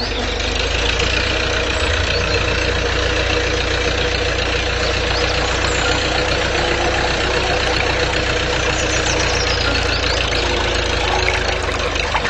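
A small engine running steadily, with a constant hum under it.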